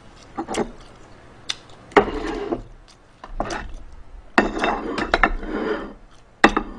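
Plates and tableware clinking and clattering as dishes are moved about and set down on a table, in several short bursts with single clicks between them.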